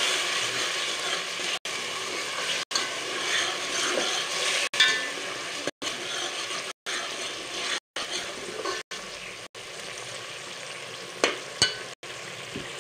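Tomato purée sizzling as it fries in mustard oil in a steel pot, stirred with a steel ladle that scrapes against the pot. The sizzle is quieter in the second half, and near the end the ladle gives two sharp clinks.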